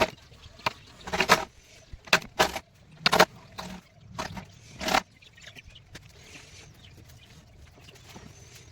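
Wood carving work: a run of sharp knocks, about seven in the first five seconds, some with a short ring, then only faint light tapping.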